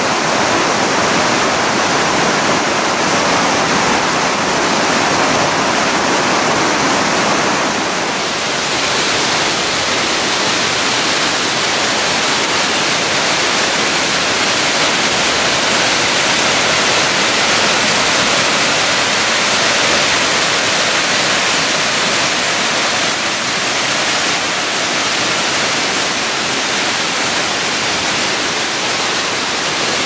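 Waterfall pouring down over rock slabs: a loud, steady rush of falling water. The rush turns brighter and hissier about eight seconds in.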